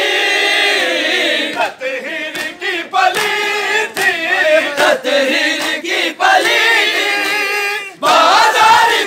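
Crowd of men singing a Shia noha (mourning lament) in chorus, in long drawn-out lines, with scattered sharp slaps of matam, hands striking bare chests.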